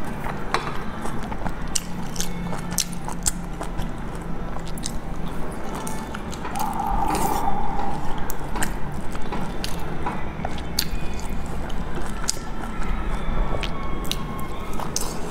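Eating sounds: biting and chewing a steamed dumpling, with scattered short mouth clicks over a steady low hum.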